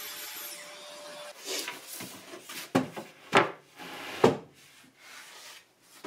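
An MDF panel being slid and set down on an OSB cabinet top: wooden rubbing and several sharp knocks, the loudest about three and four seconds in. Before that, a power tool's hum and whine die away in the first second.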